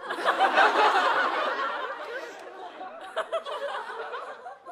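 Studio audience laughing at a punchline, many voices at once. It is loudest at the start and dies away over the next few seconds.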